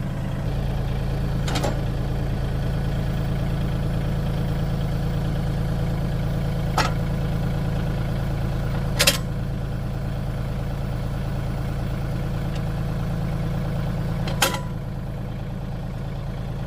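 LS MT232 compact tractor's diesel engine running steadily as the tractor pulls forward, with four sharp knocks spread through it. The engine sound drops a little after the last knock, near the end.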